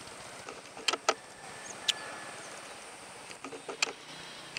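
Steady outdoor background noise broken by several short, sharp clicks or knocks: two about a second in, one near two seconds, and a small cluster near the end.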